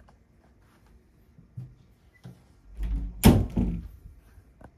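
A few light knocks, then a cluster of loud thumps and knocks with one sharp bang about three seconds in, from things being handled and bumped close to the microphone.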